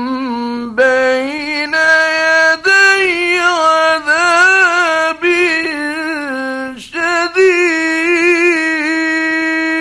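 Male Quran reciter chanting in the melodic mujawwad (tajwid) style: long held notes with wavering ornaments, broken by a few short breaths.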